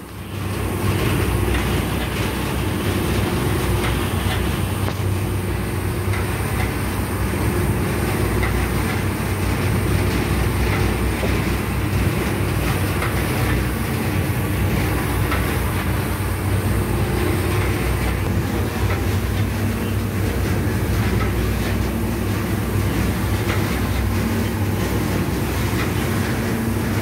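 Tea factory machinery, a blending or packing machine, running steadily with a low hum.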